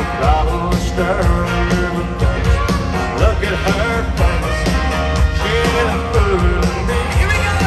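Live country band with a male lead singer: vocals over guitars and a steady drum beat, heard from the crowd in a stadium.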